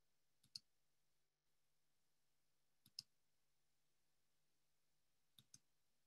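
Near silence: room tone broken by three faint, sharp double clicks, evenly spaced about two and a half seconds apart.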